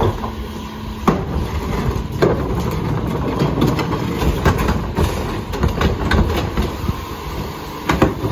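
Rear-loader garbage truck's engine running while its hydraulic cart tipper lowers emptied trash carts, with several sharp clanks of plastic carts and metal lifter, the loudest about a second in, just after two seconds and near the end.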